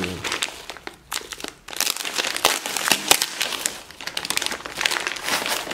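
Plastic packaging bags crinkling and crackling as they are handled and unwrapped, in dense irregular crackles with a short lull a little under two seconds in.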